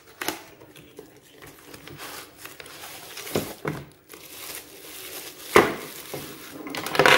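Unboxing handling: a cardboard box being opened and a plastic-wrapped device pulled out, with plastic packaging crinkling and rustling throughout. Several sharp crackles and knocks are mixed in, the loudest about three-quarters of the way through and another just before the end.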